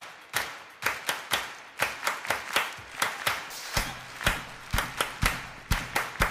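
Loud hand claps echoing through a large arena, about two a second in an uneven rhythm. A low steady bass tone comes in partway through as a music intro begins.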